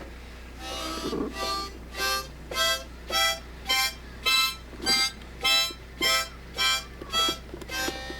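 Harmonica playing a tune in short separate notes, about two a second, with brief breaths between them.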